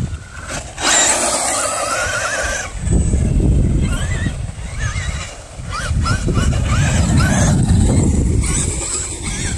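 Brushless electric motor of a Traxxas Rustler VXL RC truck whining under throttle over a constant low rumble. A wavering whine comes about one to three seconds in, then a string of short rising-and-falling chirps, about three a second, as the throttle is blipped.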